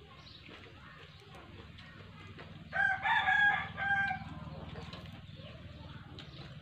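A rooster crowing once, one loud call of about a second and a half near the middle, over a faint steady low hum.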